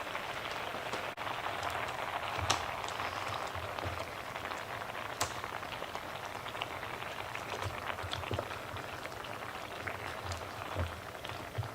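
Chicken cutlets simmering in a creamy pan sauce: a steady sizzling hiss with scattered small crackles and pops.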